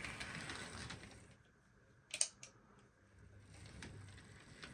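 Bachmann B1 model locomotive chassis running on model railway track: a faint motor whir and wheel noise, with a couple of sharp clicks about two seconds in.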